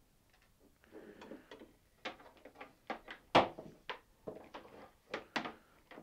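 Knocks and clicks from a mitre saw and its parts being handled and moved on a surface, with one sharp knock about three and a half seconds in that stands out above the rest.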